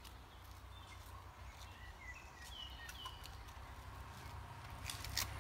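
Faint bird chirps, a few short high notes in the middle, over a steady low rumble. A couple of sharp clicks come near the end.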